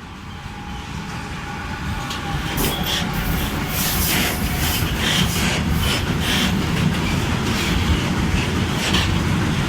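A train approaching and passing through the station, growing louder over the first few seconds, then a steady loud rumble with a quick run of wheel clicks over the rail joints.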